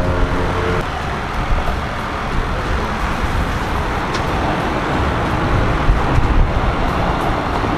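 Steady outdoor roar of wind buffeting the microphone, mixed with road traffic on the bridge alongside.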